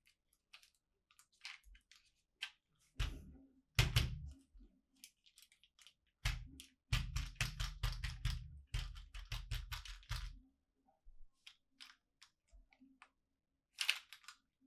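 Toy packaging being handled and opened: a string of small clicks, taps and crackles, with heavier knocks and rustling in two spells, about three seconds in and again from about six to ten seconds in.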